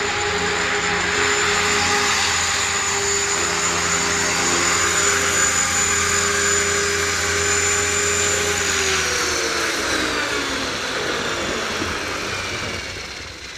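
Align T-Rex 500 electric RC helicopter's motor and rotors whining steadily, then spooling down with falling pitch from about nine seconds in, as it sits on the ground.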